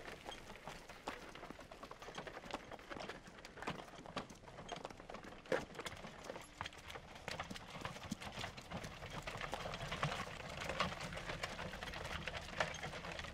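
Horses' hooves clip-clopping and wooden cart wheels knocking and rattling over stony ground in an uneven run of knocks. A faint low steady tone comes in about halfway.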